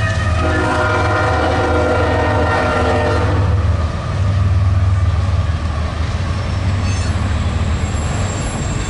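Air horn of a Union Pacific diesel freight locomotive sounding a chord for a grade crossing, held for about three and a half seconds and then cut off. Under it and afterwards comes the steady deep rumble of the passing diesel locomotives.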